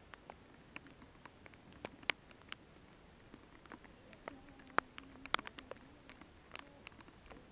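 Irregular small clicks and ticks, scattered unevenly and fairly quiet, the sharpest ones about two, five and five and a half seconds in.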